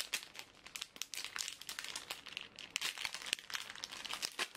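Plastic gummy candy wrapper crinkling in the hands as it is opened: a dense run of irregular crackles.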